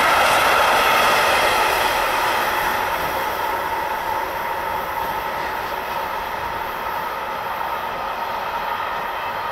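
A train rolling past on the track, the wheels running on the rails with a faint ringing tone. It slowly fades as the train moves away.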